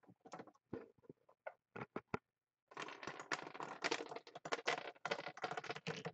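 A hockey puck dropping down a pegged Plinko board, clattering against the pegs: a few scattered clicks at first, then a rapid run of clicks from about three seconds in as it bounces down toward the bottom slots.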